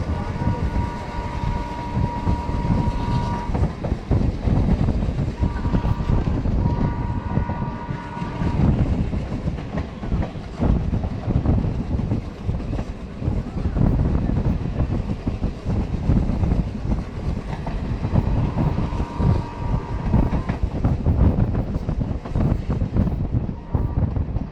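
Indian Railways WDM2 diesel-electric locomotive pulling away under load, its ALCO engine chugging heavily while its multi-tone horn sounds three long blasts: one at the start, one after about five seconds, and one a few seconds before the end.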